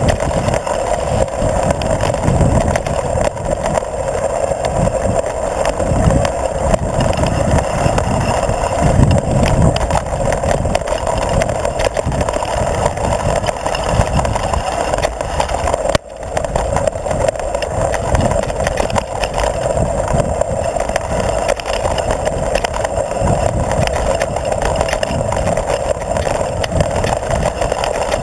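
Mountain bike ride heard through a bike-mounted action camera: steady wind buffeting and the rumble and rattle of knobby tyres on a dirt singletrack trail. The sound dips sharply for a moment about halfway through, then picks up again.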